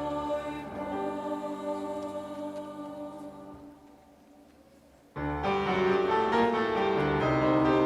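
Youth choir singing a held chord with piano, fading away to near silence about four seconds in. Just past five seconds the music comes back in suddenly at full level, led by piano.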